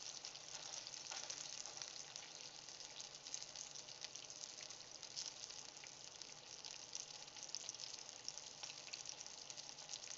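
Breakfast sausage patties sizzling in their grease in a stainless steel skillet, nearly done: a quiet, steady hiss dotted with fine crackles.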